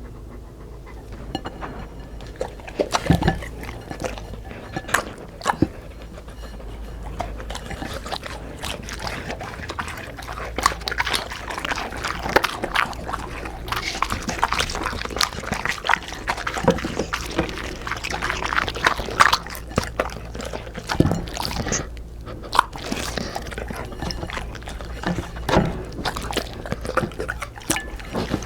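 A Labrador and a golden retriever eating, heard as dense irregular chewing and crunching clicks with a few heavier knocks.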